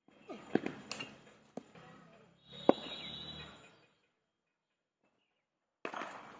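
A few light knocks, then a single sharp crack about two and a half seconds in, the loudest sound: a cricket bat striking the ball in net practice.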